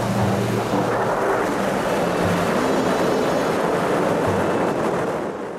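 Strong wind buffeting the microphone, with surf washing on the shore, fading out at the end.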